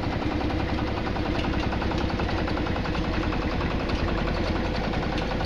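Old tractor engine idling, with a steady, rapid, even beat.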